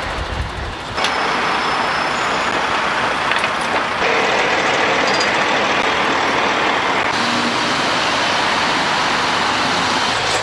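Heavy trucks running, a steady rushing road and engine noise. The noise changes abruptly in level and tone about a second in, again at four seconds and again at about seven seconds.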